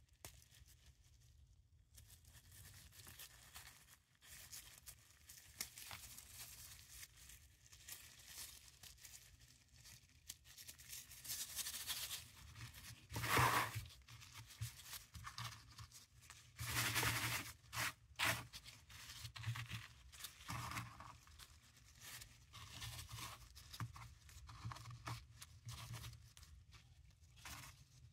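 Paradichlorobenzene mothball tablets being crushed and ground to powder between rubber-gloved fingers: a continuous grainy crunching and rustling, with louder crunches about halfway through.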